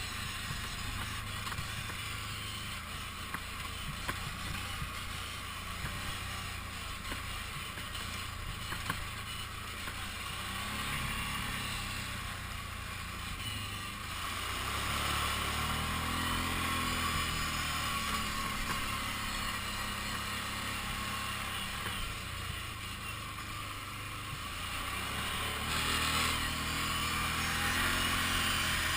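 Kawasaki Brute Force 750 ATV's V-twin engine running under way, with the revs rising and the sound swelling twice, about halfway through and again near the end.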